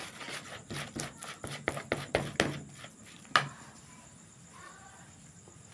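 Plastic rice paddle scraping and tapping against a bowl as a crumbly bait mix is stirred: a quick run of scrapes and taps, then one louder knock about three and a half seconds in as the paddle is laid in the bowl.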